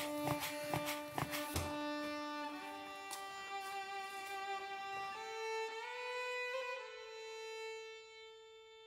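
Violin background music playing slow, long held notes that fade out near the end. Over the first two seconds, sharp knocks come about twice a second: a knife chopping rolled noodle dough on a wooden board.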